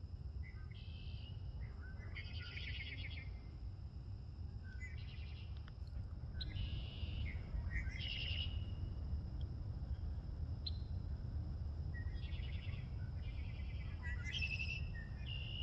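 Red-winged blackbirds singing, their songs recurring every couple of seconds, several ending in a fast trill, under a steady low rumble.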